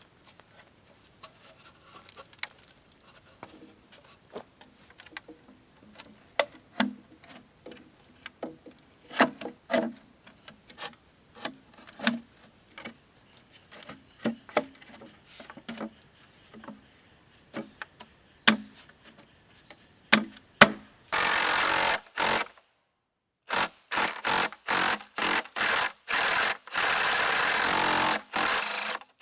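Bamboo being worked with tools: scattered light knocks and clicks, then from about 21 seconds in a run of loud, even noise bursts of varying length, each starting and stopping abruptly.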